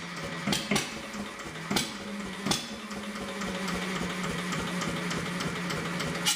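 1930s Onan single-cylinder diesel generator set turning over on its start attempt, a steady hum that rises slightly in pitch about two and a half seconds in. There are a few sharp clicks in the first half and light, rapid ticking throughout.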